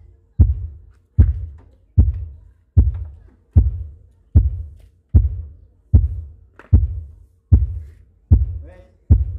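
Phase-test pulses played through a large sound system's speaker cabinets, used to check each driver's polarity: a deep thump about every 0.8 seconds, each dying away quickly.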